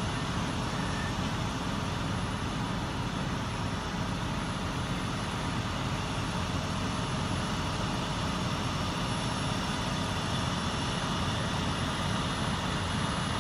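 Steady low rumble of idling fire engines, with a continuous haze of outdoor noise.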